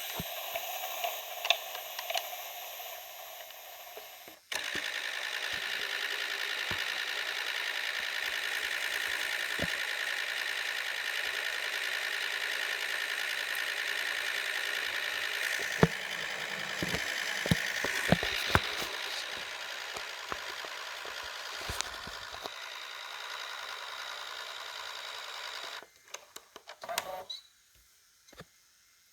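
RCA CC6363 VHS-C camcorder running: a steady mechanical whir and hiss that starts abruptly a few seconds in, with scattered small clicks from its controls and handling, then cuts off near the end, leaving only a few clicks.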